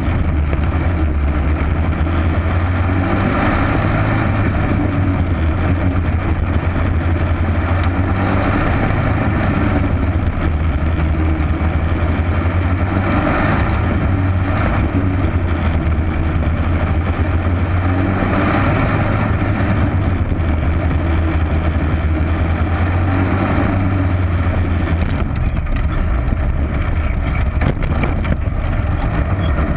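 Race car engine running hard, heard from a camera mounted on the car as it laps a dirt oval, a loud steady low drone with wind and road noise over it; the drone eases near the end.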